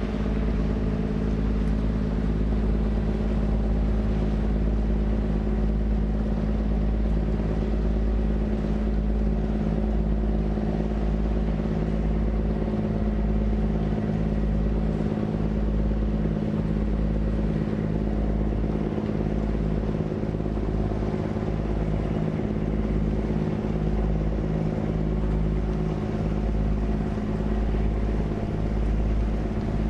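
Steady drone of a sand-carrying river boat's engine, with strong wind buffeting the microphone in a low, uneven rumble.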